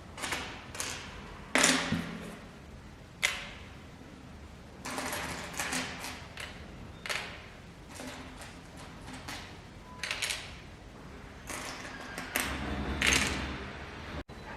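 LEGO bricks being handled and pressed together: an irregular string of sharp clicks and taps, with a couple of short stretches of rustling.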